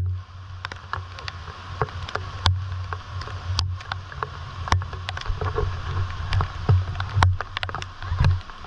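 River water rushing in rain, with scattered sharp knocks and taps and a low rumble that swells and fades on the microphone.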